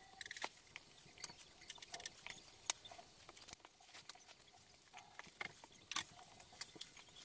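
Faint crinkling and rustling of thin plastic food bags handled by hand while raw chicken wing pieces are packed into them, heard as irregular soft crackles.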